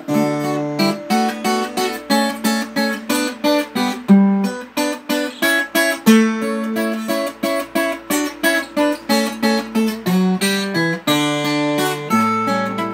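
Instrumental break in a sertanejo song: an acoustic guitar picked and strummed in a quick, steady run of notes, with no singing.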